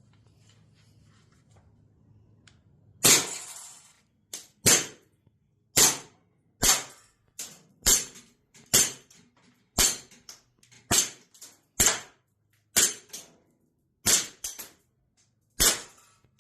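Airsoft Colt 1911 replica pistol being fired in a small room: a dozen or so sharp pops at roughly one a second, starting about three seconds in, many followed by a fainter click.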